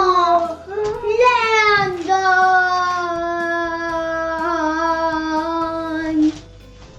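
A child singing. Several gliding notes come first, then one long held note that stops suddenly about six seconds in.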